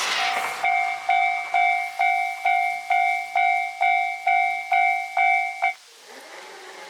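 A level crossing warning bell ringing in a steady two-tone pattern, about two strikes a second. It stops abruptly a little under six seconds in. In the first half second the rush of the KiHa 261 series diesel express that has just passed dies away.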